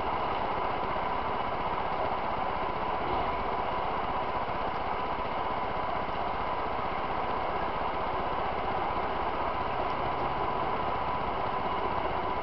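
Steady mechanical hum with a thin, high, steady whine.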